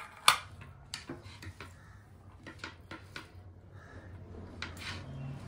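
Dishes and utensils clinking: a sharp knock just after the start, then scattered lighter taps, over a faint steady low hum.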